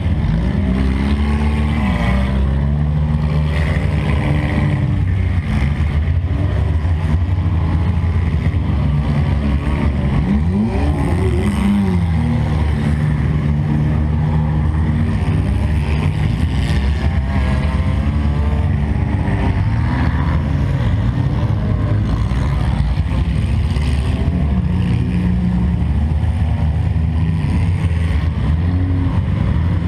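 Demolition derby car's engine running loud, its revs rising and falling again and again, heard through a camera mounted on the car.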